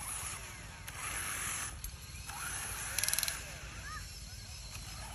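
Electric motors and gearboxes of a HUINA RC excavator whining in spells as the boom, arm and bucket move. About three seconds in there is a brief loud rattle of fast clicks from the gears.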